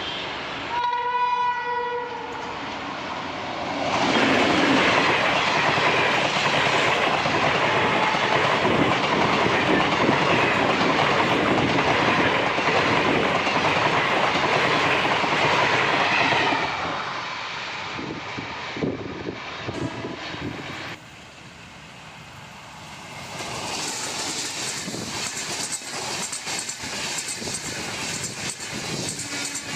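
Indian Railways train: a short horn blast about a second in, then the loud running noise of the train going by for about twelve seconds. After that come quieter rhythmic clicks of wheels over rail joints. The sound drops away suddenly, and near the end a steadier train running noise sets in.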